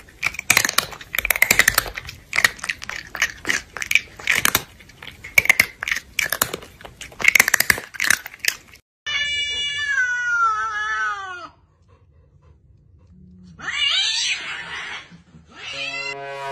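Cat eating noisily, with quick irregular crunching and chewing for about nine seconds. Then comes one long meow that falls in pitch, a harsher, noisier cat cry, and a short yowl near the end.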